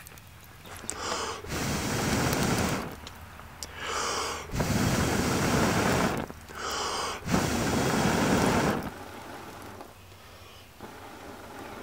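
A person blowing hard on glowing coals to bring them to flame: three long, loud blows, each after a quick sharp inhale. The blowing stops about nine seconds in.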